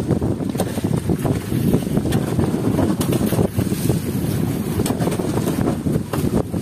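Wind buffeting the microphone on a small fishing boat in a rough, rolling sea, a dense low rumble with a few short knocks against it.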